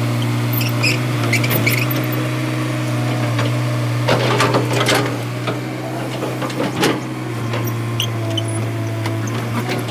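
Diesel engine of a Tata Hitachi EX200 excavator running steadily, with short high squeaks about a second in and a few sharp knocks around the middle.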